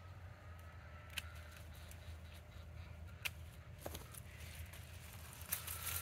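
Faint rustling of sweet potato vines and leaves being handled and pulled, with a few sharp clicks, over a low steady hum.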